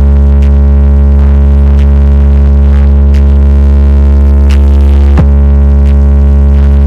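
Car sound system's subwoofers playing a bass test track ("gravão"): one sustained, very loud, deep bass tone, briefly interrupted by a quick falling sweep about five seconds in.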